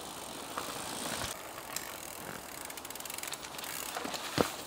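Downhill mountain bike on a dirt trail: tyres on loose soil and rapid ticking from the rear hub as it coasts, getting louder toward the end as the bike comes closer.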